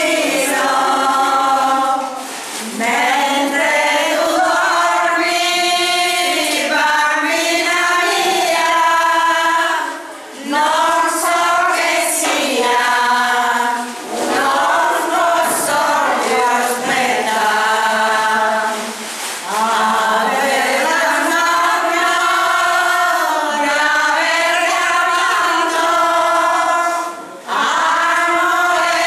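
A group of elderly women singing a traditional folk song together without instruments, in long phrases broken by brief pauses for breath.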